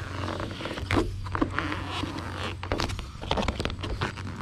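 Printed vinyl wrap film being peeled by hand off a trailer panel: a ragged, irregular crackling as the adhesive lets go. A steady low hum runs underneath.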